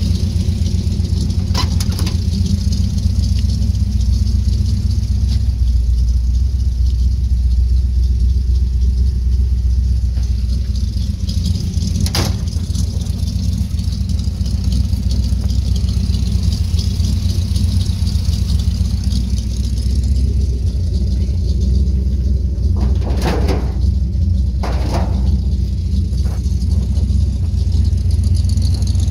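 A vehicle engine idling steadily, a constant low rumble with an even pulse. A few brief clicks are heard early and midway, and two short noises come near the end.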